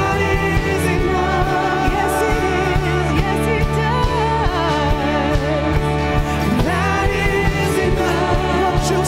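Live worship band playing a song: sung vocals holding long notes with vibrato over a steady drum and bass beat.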